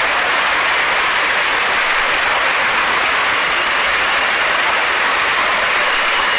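Large convention crowd applauding and cheering, a dense, steady wash of clapping with no break.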